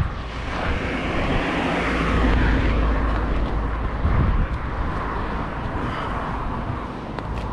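Road vehicle noise: a steady low rumble with a broad rushing noise that swells about two seconds in and then eases off.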